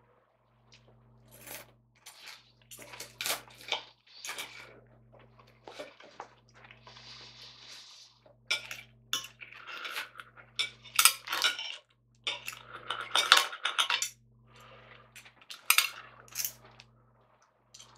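Metal knife and fork scraping and clinking against a plate while cutting up fried breakfast food, in irregular bouts of scraping broken by sharp clinks.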